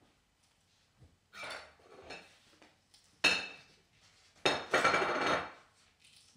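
Kitchen utensils and dishes clattering on the counter: a few light knocks, a sharp ringing clink about three seconds in, then a louder rattling clatter lasting about a second.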